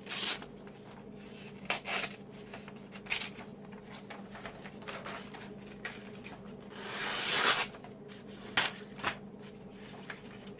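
Handling noises: short scrapes and rubs with a few clicks, and one longer rasping rub about seven seconds in, over a faint steady hum.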